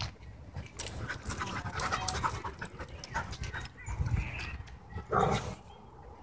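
Dogs panting and scuffling as they run and wrestle in play on dirt, with a louder short outburst from the dogs just past five seconds in.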